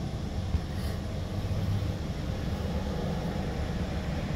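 An engine running steadily with a low, even drone, and a small click about half a second in.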